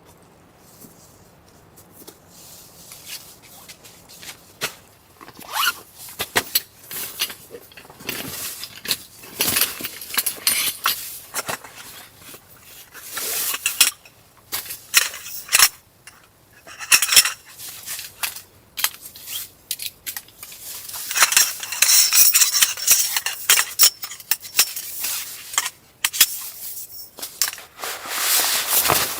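Irregular scraping, rustling and clinking of hard objects being handled, busiest about two-thirds of the way through.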